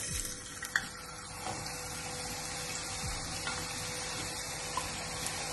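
Fresh potato wedges deep-frying in hot oil, a steady sizzle just after they go into the pan. A few sharp clicks come in the first second.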